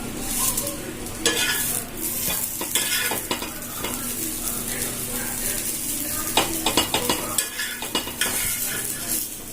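Buttered bread sandwich sizzling as it toasts in a hot pan, with a spatula scraping and tapping against the pan now and then.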